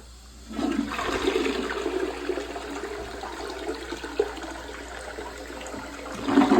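A freshly reset toilet flushing: water rushes through the bowl and drain, starting about half a second in, with a louder surge near the end.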